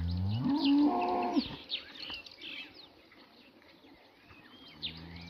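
Cattle mooing: a long moo rising in pitch at the start, then a lower, steady moo near the end. Birds chirp throughout.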